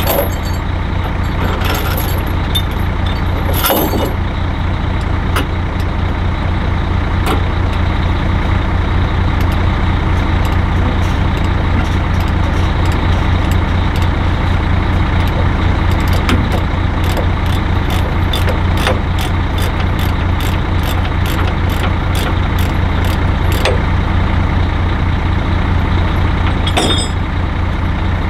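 Heavy diesel truck engine idling steadily, with sharp clicks scattered over it, thickest in the middle.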